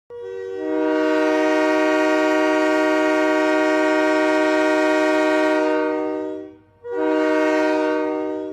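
Multi-chime train air horn sounding a steady chord: one long blast of about six seconds, then a short blast of about two seconds.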